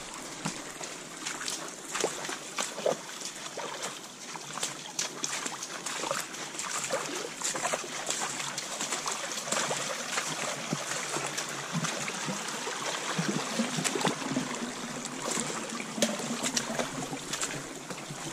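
Boots splashing and squelching through shallow water and mud on a streambed track, over the steady trickle of running water, with many short clicks and splashes from the steps.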